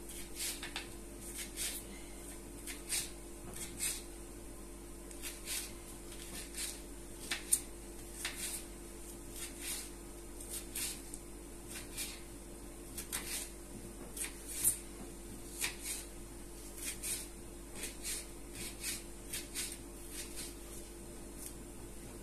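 Kitchen knife slicing a green bell pepper on a plastic cutting board, the blade tapping the board in irregular light clicks, roughly two a second, over a faint steady hum.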